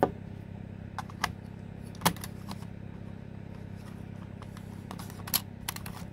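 Batteries being pushed and fitted into the plastic battery compartment of an Aiwa RX308 cassette player: a string of sharp clicks and knocks of battery and plastic, loudest at the very start, around two seconds in and just after five seconds. The batteries are not going in easily. Under it is a steady low hum.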